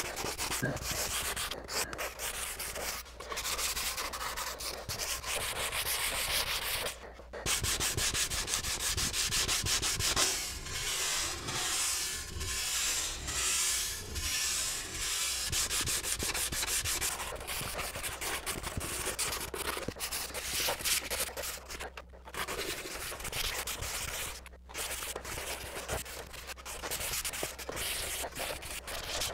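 Sandpaper rubbed by hand over the varnished wooden kayak seat, scuffing up its smooth finish in quick back-and-forth strokes that stop briefly a few times.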